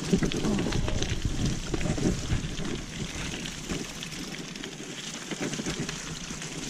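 Enduro mountain bike rolling over a rough trail: tyre rumble and small rattles and knocks from the bike, with wind on the microphone. The rumble is heaviest in the first two seconds or so, then eases.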